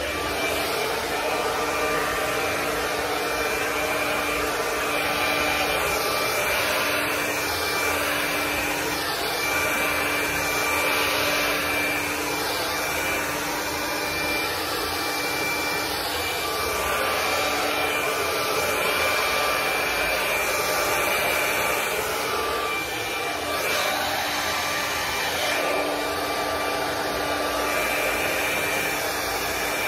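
Handheld hair dryer running steadily: an even rush of blown air with a steady whine over it, wavering a little as it is moved about the hair.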